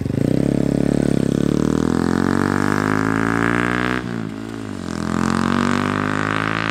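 2022 Honda Grom's 125 cc single-cylinder engine accelerating as the bike pulls away: revs climb, drop sharply at an upshift about four seconds in, then climb again in the next gear.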